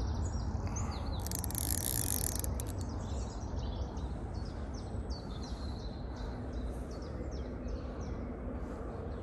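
Small songbirds chirping, a quick run of short repeated notes, over a steady low rumble. A brief high hiss about a second and a half in.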